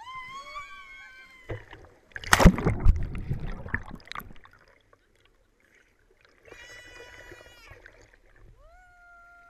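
Drawn-out excited shrieks, then loud rushing and splashing of river water as a person shoots down a rock water slide, followed by more shrieks and a long held 'woo' near the end.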